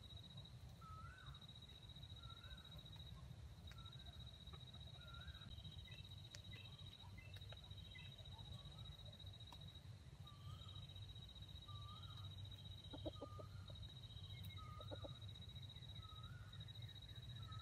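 Faint soft clucks from a wild junglefowl, in two short runs in the latter half. Behind them run a steady high insect trill with short breaks and a bird's short rising note repeated about every second and a half.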